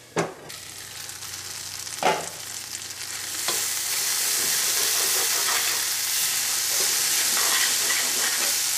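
Green peas and onion-tomato masala sizzling in a stainless steel pan while being stirred with a spatula; the sizzle grows louder from about three and a half seconds in. Two sharp knocks on the pan, one just after the start as the lid is set on, another about two seconds in.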